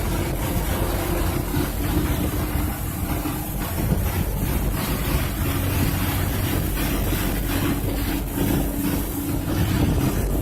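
Boat engine running steadily with a held hum as the whale-watching boat pulls out slowly, under a constant rush of wind and water noise.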